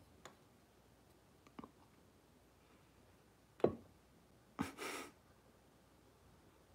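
Quiet room with a few faint clicks, the loudest a little past halfway, then a short breathy exhale like a sigh.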